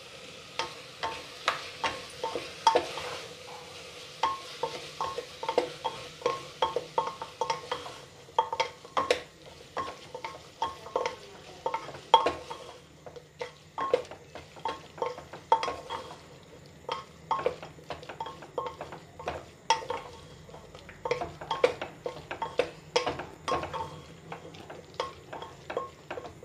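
Wooden spatula stirring vegetables, spices and curd in an aluminium pressure cooker, knocking against the metal pot about two to three times a second. A light sizzle from the hot pot sits under the knocks in the first several seconds.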